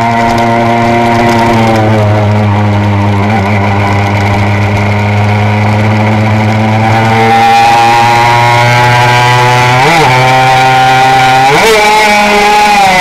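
Honda RS125 single-cylinder two-stroke racing engine running hard at high revs, heard from on the bike. Its note holds steady, then climbs, and dips sharply and recovers twice near the end.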